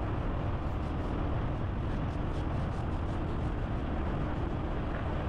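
Steady engine and road noise from a moving vehicle, with a faint constant hum and no distinct events.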